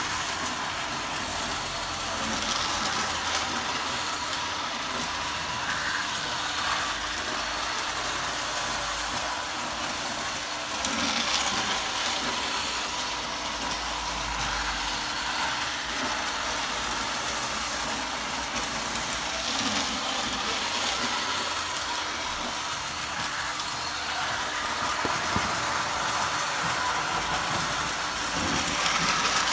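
Toy train set running round a loop of plastic track, its small locomotive motor and wheels making a steady running rattle. It swells louder about every eight or nine seconds as the train passes close by.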